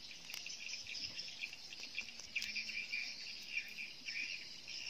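Insects chirring steadily in the background, a high pulsing trill, with a couple of faint clicks.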